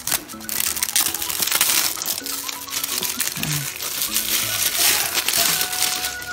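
Packaging crinkling and rustling in the hands as a keyboard's box is unwrapped and opened, with many small sharp crackles throughout.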